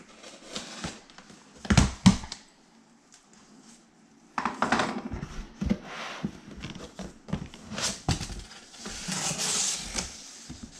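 Cardboard fireworks assortment box being opened and handled: flaps and contents scraping and rustling, with a pair of heavy thumps about two seconds in.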